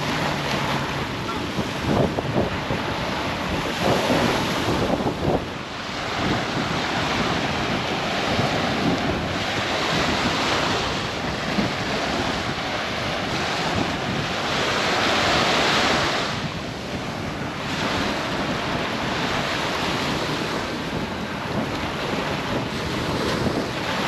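Surf washing onto a sand beach, mixed with wind buffeting the microphone; the rush swells and eases every several seconds, loudest about two-thirds of the way through.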